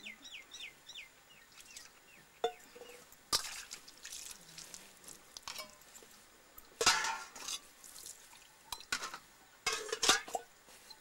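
Stainless-steel platters, cups and a copper water jug being washed by hand, scrubbed with ash and rinsed with poured water: metal clinks and clatters, with splashing water. The clatters come in scattered clusters, the loudest about seven seconds in.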